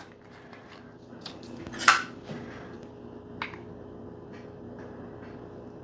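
Light kitchen handling sounds over a faint steady hum: a few soft clicks and taps, with a short scrape about two seconds in and a sharp little click around three and a half seconds.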